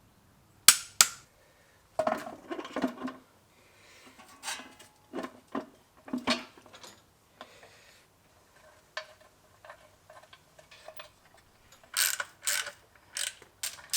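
Hand tools working the bolts of a flywheel-mounted clutch pressure plate: sharp metallic clicks and clinks of a wrench, ratchet and loose steel bolts. There are two loud clicks about a second in and a quick run of them near the end.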